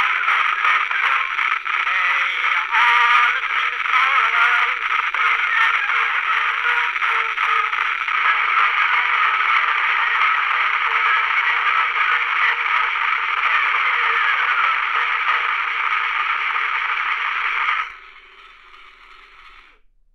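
Edison cylinder phonograph playing a cylinder record through its reproducer: a thin, tinny, narrow-band sound under heavy surface hiss and crackle. About 18 seconds in it drops sharply, then fades away near the end.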